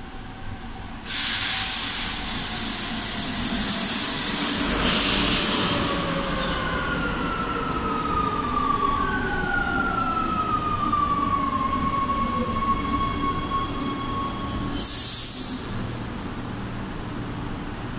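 CAF-built metro train pulling into the station and braking to a stop. A sudden rush of noise begins about a second in, whines fall steadily in pitch as it slows, and a brief loud hiss comes near the end as it halts.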